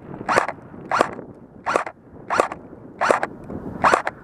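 Footsteps swishing through tall dry grass at a walking pace, six steps about two-thirds of a second apart.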